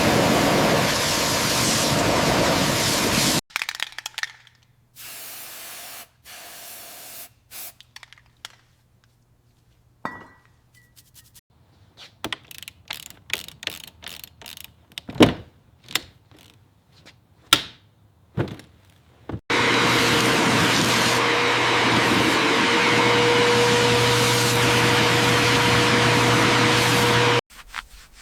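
Car body workshop tool noise: a steady, loud hiss at the start that breaks off after about three seconds, then a stretch of scattered taps, clicks and knocks. About two-thirds of the way in, a long stretch of steady hiss with a low hum under it begins, and it stops shortly before the end.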